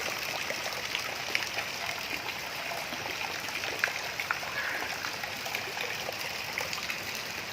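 Steady rush of water with scattered small drips and splashes, from knee-deep monsoon floodwater.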